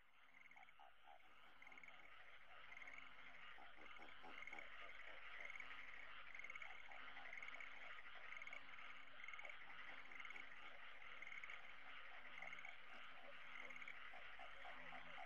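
A chorus of frogs and insects fading in: a steady high trilling, with one call repeating about once a second and lower croaks.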